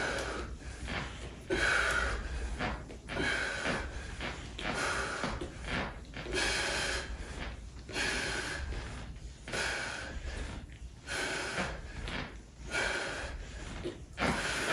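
A person breathing hard during a resistance-band leg exercise, one heavy breath about every second in a steady rhythm.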